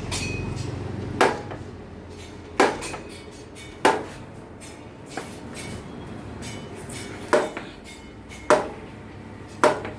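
Royal Enfield Machismo front fork giving a harsh metallic knock each time it is pressed down, six knocks in all with a pause in the middle. The knock comes from overlong fork springs.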